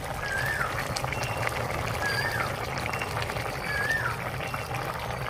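A bird repeating a short, high whistled call about every two seconds, over a steady hiss.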